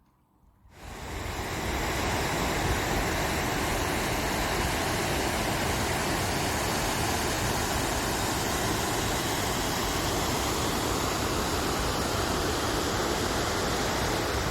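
Steady rush of water that fades in during the first second, then holds at an even level.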